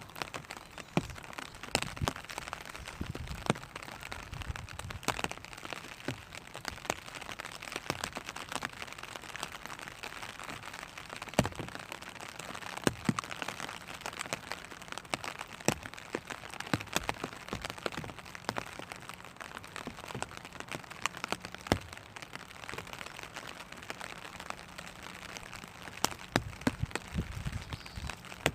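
Rain pattering on a clear plastic (vinyl) umbrella: a steady light hiss with many irregular, sharp drop taps on the plastic.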